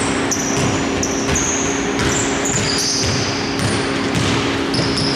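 Basketball shoes squeaking on a hardwood court: many short, high-pitched squeaks overlapping as players run and cut, with scattered thuds of the ball being dribbled. A steady low hum runs underneath.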